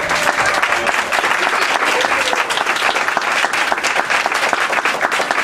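Audience clapping and applauding at the end of a children's song, many hands clapping at once.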